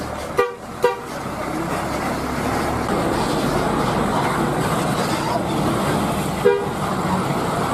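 Bus horn giving three short toots, two quick ones about half a second apart near the start and one more near the end, over the steady running of a bus engine and traffic.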